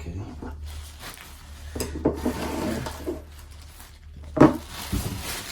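A cardboard shipping box being handled and opened by hand: rubbing and scraping of cardboard and packing, with scattered knocks and one sharp knock about four and a half seconds in.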